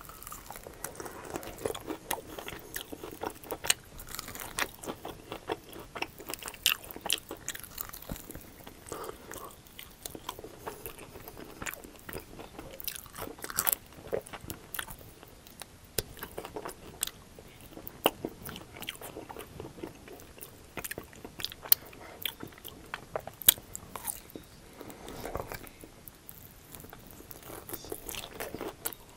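Close-miked biting and chewing of crunchy, saucy chicken wings: many sharp crackling crunches of the breading, with wet chewing between bites.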